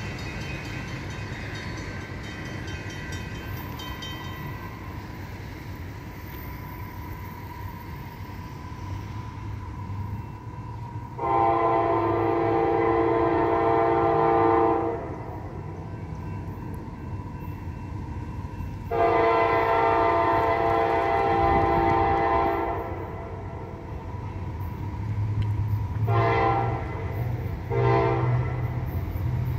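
Diesel locomotive air horn of an approaching freight train sounding two long blasts, then two short ones near the end. This is the start of a grade-crossing horn sequence. Under it runs the low rumble of the oncoming train.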